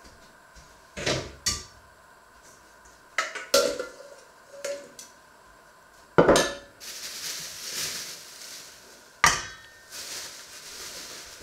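Stainless-steel bowls and a metal colander of plums clanking and knocking against each other and the wooden counter: about half a dozen separate clanks, the loudest about six seconds in, followed by a couple of seconds of rushing noise.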